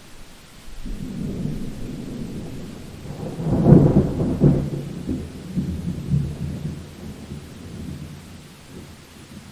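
Thunder from a summer thunderstorm: a low rumble builds about a second in, is loudest around four seconds in, then rolls on and fades away.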